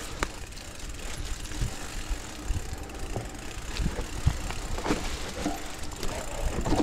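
Mountain bike rolling down a dirt trail strewn with dry leaves: tyres running over leaf litter and the bike rattling, with scattered knocks as it goes over bumps.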